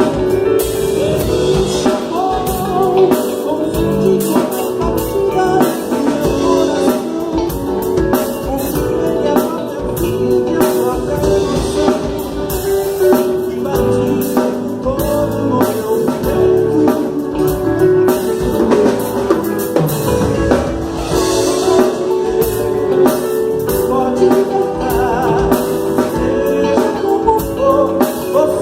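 Live church worship band playing a song with singing, a drum kit keeping a steady beat, and guitar, during a soundcheck.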